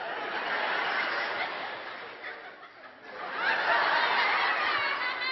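Audience laughing in two waves: the first dies down after a couple of seconds, and a second, louder wave rises about three seconds in.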